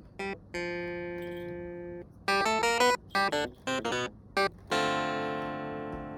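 Background music: quick runs of short plucked or keyboard-like notes, broken by two held chords that slowly fade.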